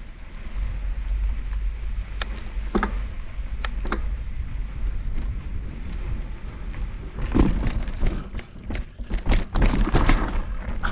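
Wind rumbling on the microphone of a moving bicycle, with scattered knocks and clicks from the bike over bumps. Clusters of harder rattling impacts come about seven seconds in and again around nine to ten seconds, as the bike rides over the dirt jumps with its suspension fork locked out.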